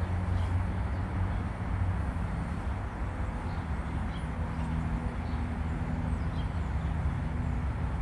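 A steady, low mechanical hum over an even background rush, with a few faint high chirps now and then.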